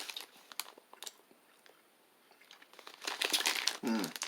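Crackling and crinkling of a plastic licorice wrapper being handled, in scattered crackles and then a dense burst about two and a half seconds in. Near the end there is a short hum that falls in pitch.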